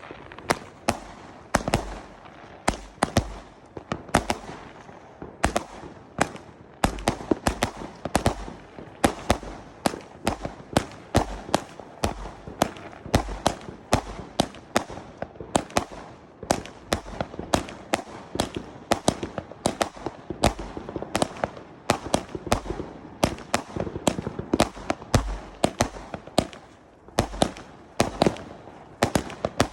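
Weco Survivor fireworks going off in a rapid, unbroken string of sharp bangs, several a second, with deeper thumps among them.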